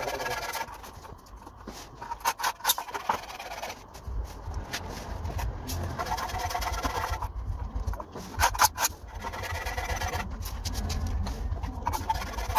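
Rubbing and scraping with scattered knocks as a metal straightedge is handled and set against a concrete-block wall. A low steady rumble runs underneath from about four seconds in until near the end.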